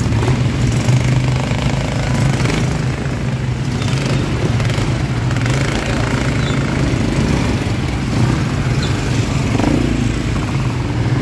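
ATV engines running steadily, an even low hum with no clear revving.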